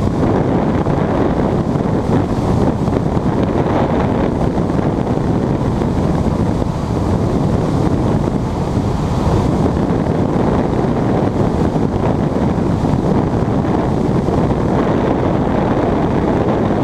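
Steady airflow buffeting the microphone of a camera mounted on a glider under aerotow.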